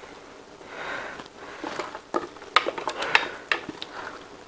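Thick blended cassava paste being poured and scraped out of a plastic blender jar into a wooden bowl. There is a soft wet rustle about a second in, then a string of light knocks and clicks from the jar being handled.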